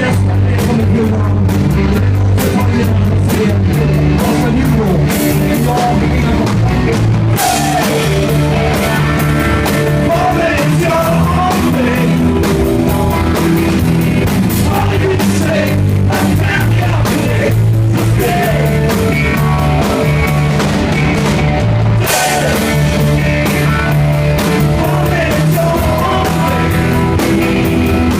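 Live rock band playing a song: a singer over electric guitar and a drum kit with a steady beat.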